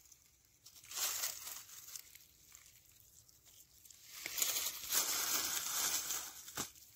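Dry fallen leaves crackling and rustling as a hand picks wild greens from the leaf litter. There is a short spell about a second in and a longer one from about four seconds in, with a sharp click near the end.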